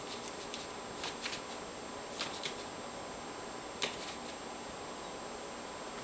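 Paper flour bag rustling as bread flour is shaken out of it into a stainless steel mixing bowl: a few soft, brief rustles over a faint steady hiss.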